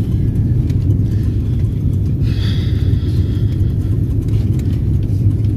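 Steady low rumble inside an airliner's cabin as the plane rolls along the runway just after landing.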